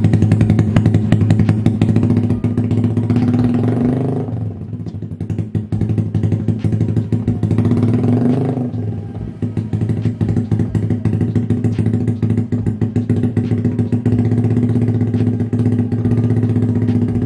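Motorcycle engine running through an aftermarket WRX GP6 carbon slip-on exhaust, freshly started and idling. It is revved up twice, each rise lasting a second or two before dropping back to idle, about four and eight seconds in.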